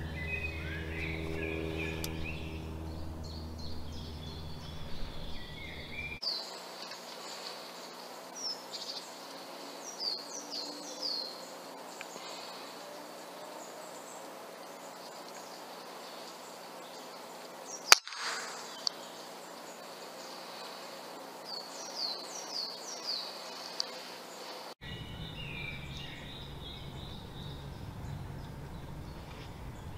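Woodland birds chirping and singing, with a single sharp report from a Walther RM8 UC air rifle firing at a squirrel about eighteen seconds in.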